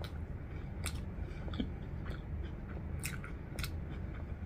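A person chewing a mouthful of soft burger close to the microphone, with about five short, sharp wet clicks from the mouth spread through the chewing, over a steady low hum.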